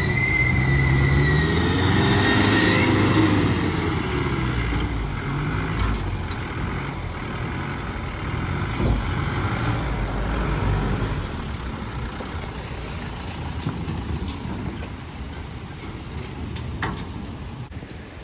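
A Mahindra 4x4's engine revving up and driving off, with a high whine over the first few seconds. It is loudest at the start and then fades slowly.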